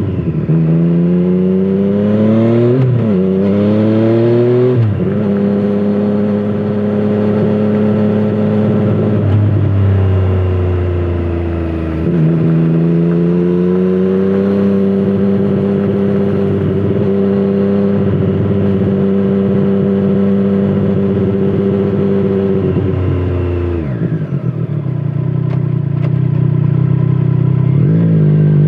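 Triumph Street Triple 765 RS three-cylinder engine through an aftermarket Scorpion Serket exhaust, pulling through the gears under acceleration. The revs climb with two quick upshifts in the first five seconds, then hold a mostly steady cruise. About 24 seconds in the note drops sharply as the throttle is closed, then rises again near the end.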